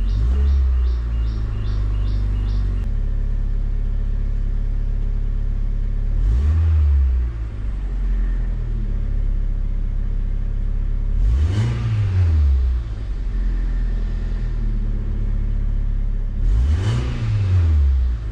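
Mazda car engine idling after its ignition coils have been replaced, blipped three times so the revs rise and fall back each time. The owner still finds the idle a little shaky.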